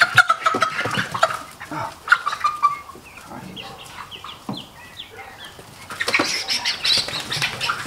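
Young Silkie chicks peeping in a series of short chirps, with loud bursts of rustling and scuffling near the start and again near the end.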